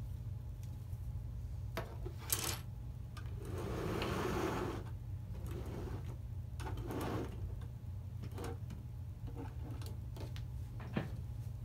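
Plastic LEGO parts clicking and knocking against a wooden tabletop as a girder is set down and train cars are handled, with a longer scraping slide about three to five seconds in. A steady low hum lies underneath.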